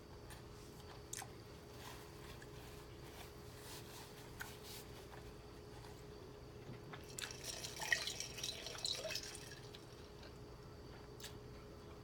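Close-up eating sounds from a person eating garlic butter noodles: scattered wet mouth clicks from chewing, with a louder stretch of slurping about seven to nine and a half seconds in.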